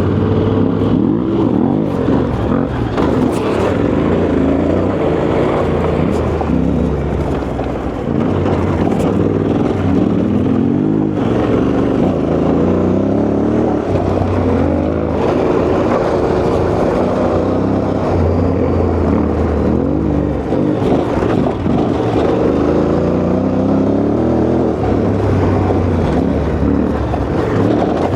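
Yamaha Ténéré 700's parallel-twin engine under way off-road, its revs rising and falling again and again with throttle and gear changes.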